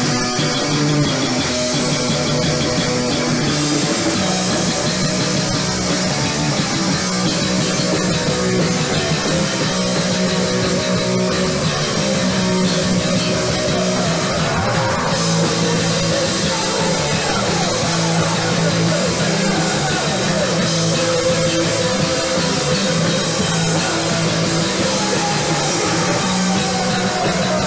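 Rock band playing live, loud and steady, with electric guitar, bass and drum kit. Pitch slides run through it about halfway through and again near the end.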